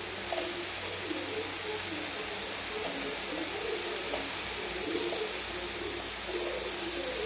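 Mint leaves sizzling in a hot aluminium kadai, a steady hiss. Over it, a bird coos in short, repeated phrases throughout.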